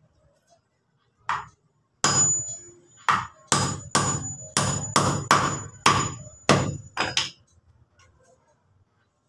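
Carpenter's hammer striking wood, about a dozen sharp blows in an uneven rhythm, with a thin high ring running under them.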